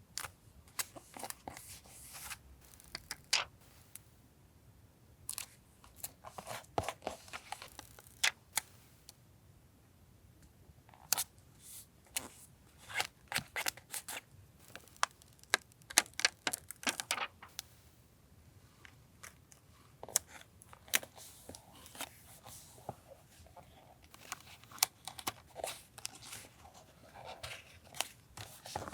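Paper being handled and torn for a collage journal: short, irregular rustles and rips in clusters, with brief pauses between them.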